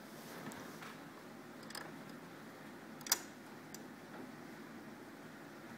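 A few small clicks and taps from handling a sewing machine while its top thread is being led through the guides, the sharpest about three seconds in, over a faint steady room hiss.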